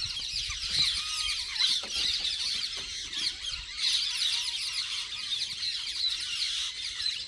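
A dense chorus of many birds chirping and calling at once, overlapping quick high-pitched notes that never let up.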